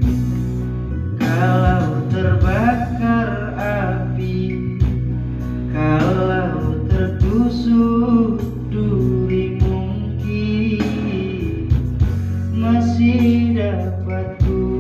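Music: a sung pop ballad over a karaoke backing track with guitar, a man's voice singing the melody through a microphone.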